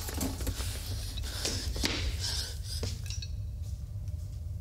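A few light clicks and clinks in the first three seconds, over a steady low hum and hiss.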